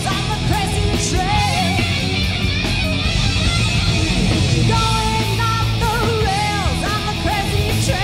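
A live hard rock band playing loud: distorted electric guitars, bass guitar and a drum kit, with a woman singing lead.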